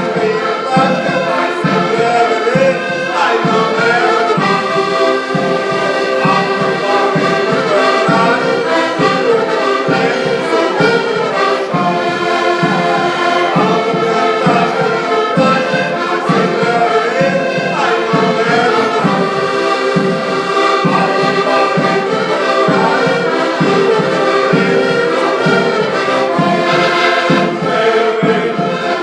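Music: a group of voices singing together with instrumental accompaniment over a steady beat.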